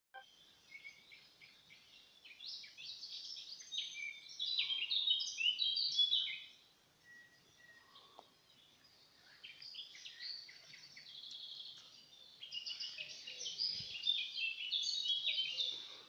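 Songbirds singing in woodland: rapid, varied high chirping notes. They come in two loud spells, one a few seconds in and one near the end, with quieter scattered calls between.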